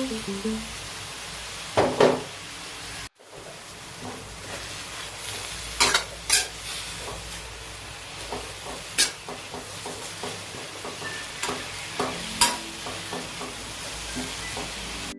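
Cassava leaves stir-frying in hot oil with a steady sizzle, while a spatula knocks and scrapes against the pan several times. The sound cuts out for a moment about three seconds in.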